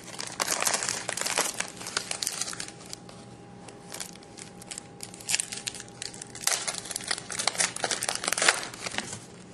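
Trading-card packaging crinkling and rustling in bursts as card packs are unwrapped and handled, busiest in the first couple of seconds and again near the end.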